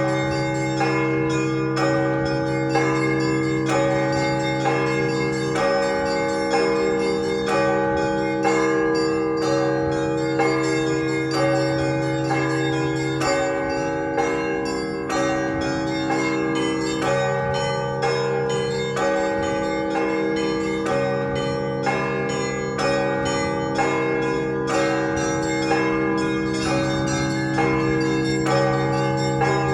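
Festive peal on a 48-bell set of Russian Orthodox church bells. Small bells are struck in a rapid, continuous pattern over the deep, long-ringing hum of the large bells, which sound again every few seconds.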